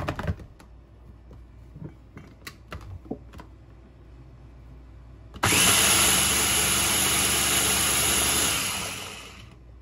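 A few light clicks and knocks, then an electric kitchen mixing appliance switches on abruptly about halfway through, runs loudly and steadily for about three seconds, and winds down as it is switched off, blending the pink sauce.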